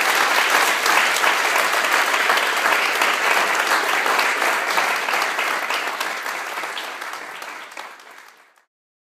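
Audience applauding, a dense patter of many hands clapping. It fades over the last few seconds and cuts off shortly before the end.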